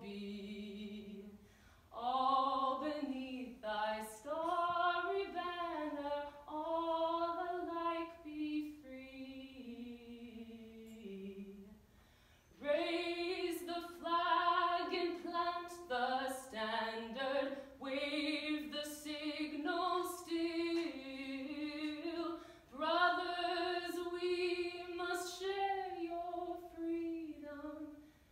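A woman singing solo without accompaniment, in long held phrases with short breaks between them, the longest about twelve seconds in.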